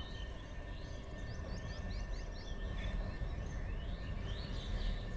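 Faint low rumble of a WAG-12B electric locomotive and its container train running at a distance, with birds chirping over it: a quick run of about five chirps about a second and a half in, and more calls near the end.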